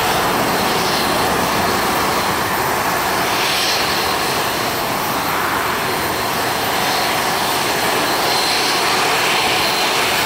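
Steady jet airliner engine noise: an even hiss with a faint high turbine whine, holding level throughout with no breaks.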